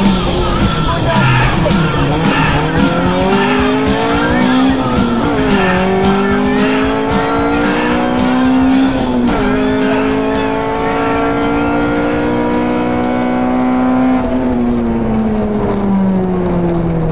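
Four-cylinder engine of a Honda Civic rally car, heard from inside the stripped cabin, accelerating hard through the gears. The revs climb, drop at two upshifts about five and nine seconds in, climb again, then fall away steadily near the end as the driver comes off the throttle.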